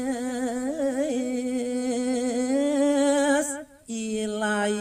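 A man singing a Balinese geguritan melody in pupuh Ginada, solo voice: a long held note decorated with small wavering turns, a short breath about three and a half seconds in, then a lower held note.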